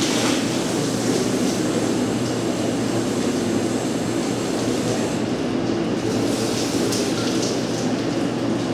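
Water spraying from a self-serve dog wash tub's hand sprayer hose onto a dog's wet coat, over a steady low machine hum.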